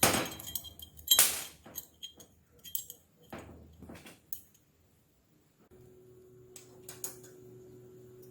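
A run of sharp clanks and clinks, as of hard objects being set down and handled, the first the loudest. After a short lull, a steady hum with a held tone starts a little before six seconds in.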